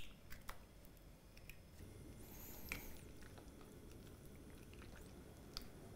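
Faint handling sounds at a glass mixing bowl: a few small clicks as an egg is pulled open over it, then a silicone spatula stirring the egg into a thick wet mixture, a soft squishing with an occasional tick against the glass.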